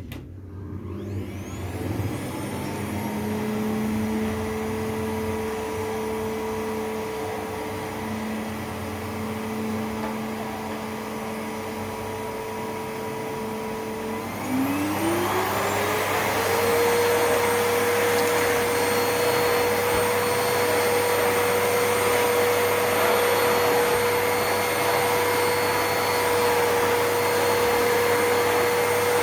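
Hoover 2000-watt vacuum cleaner motor starting up and running with a steady whine. About halfway through it speeds up and runs on higher and louder.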